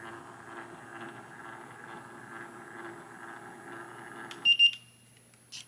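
A steady background hum cuts off suddenly about four and a half seconds in. As it stops, two short, high electronic beeps sound. A few faint clicks follow near the end.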